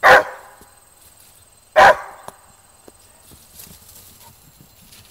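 A dog barks loud twice, about two seconds apart, then the dogs' feet run over the grass.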